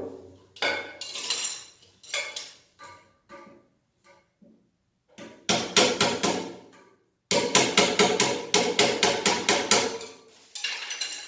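Hard knocking, like hammering or tapping on a hard surface. There are scattered single knocks at first, then two runs of quick strikes at about five a second, the longer run lasting nearly three seconds.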